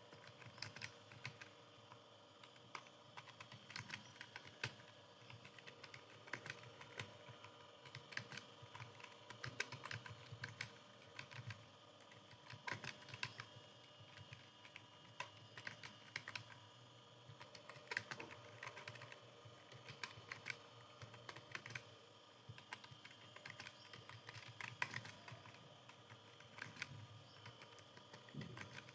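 Typing on a computer keyboard: a steady run of quick, irregular keystrokes, as in timed typing practice.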